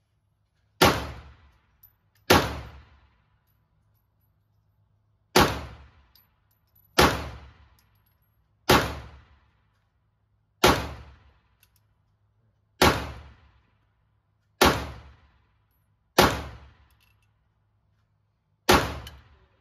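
Canik TTI Combat 9mm pistol fired ten times in slow, deliberate single shots about one and a half to two and a half seconds apart, with 115-grain rounds. Each shot is a sharp crack with an echoing tail from the indoor range.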